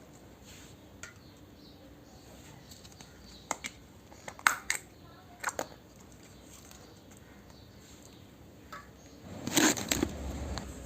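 Small plastic toy kitchen pieces being handled: a few light clicks and taps, then a short louder rustle near the end.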